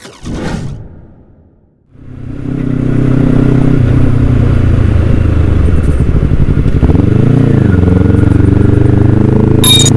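Motorcycle engine running while riding: it fades in about two seconds in and then holds steady, with a brief dip and rise in pitch around seven seconds in, and a sharp click near the end. Before it, a whoosh from the electronic intro fades out.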